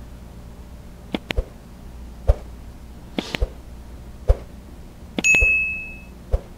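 Subscribe-button sound effects: a handful of short, sharp clicks spaced out, then a bright bell ding about five seconds in that rings for about a second, over a low steady hum.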